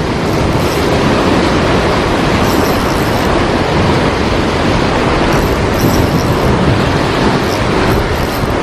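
Heavy surf at a high-tide swell breaking against the shore: a loud, steady rush of waves and churning water.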